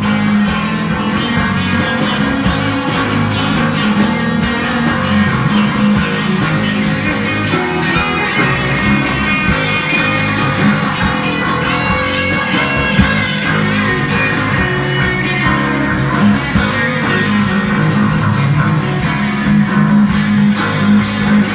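Live psychedelic rock band playing an instrumental passage: electric guitar, bass guitar and drum kit together, loud and continuous.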